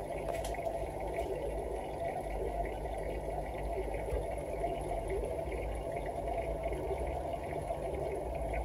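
Aquarium filter running: a steady low hum with continuous water bubbling.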